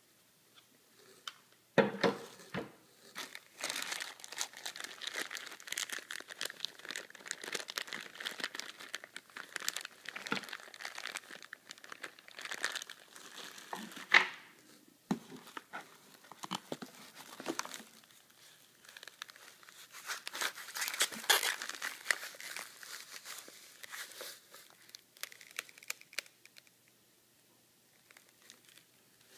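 Clear plastic packaging on 3D-printer kit parts crinkling in irregular bursts as it is handled and unwrapped inside a cardboard box, with a few sharp knocks along the way. It quiets down near the end.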